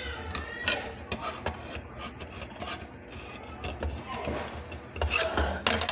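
Kitchen knife scraping and tapping on the metal lid of a fruit cocktail can, forcing it open in place of a can opener, in a run of short rasping scrapes that grows louder near the end.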